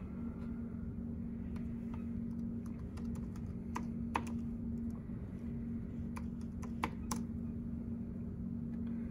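Keys being typed on a MacBook Pro laptop keyboard, a scattering of light, irregular clicks over a steady low hum.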